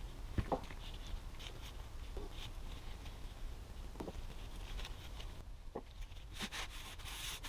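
Rag wiping grease off CV joint parts: soft rubbing and scratching, louder near the end, with a few light clicks of metal parts being handled and set down.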